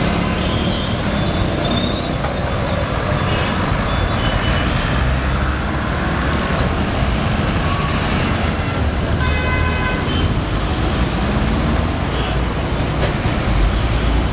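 Dense city traffic: buses, auto-rickshaws, motorcycles and cars running past close by, with a steady engine rumble and tyre noise. Short horn toots sound several times, the clearest a little past the middle.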